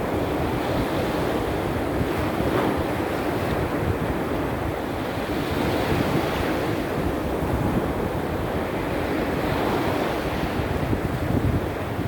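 Sea surf from a small storm breaking and washing onshore, a steady rush of water that swells every few seconds, with wind buffeting the microphone.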